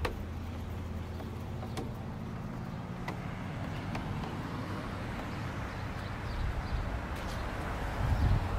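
Street traffic: a motor vehicle's engine running steadily at first, then passing traffic noise that swells loudest near the end, with a few faint clicks.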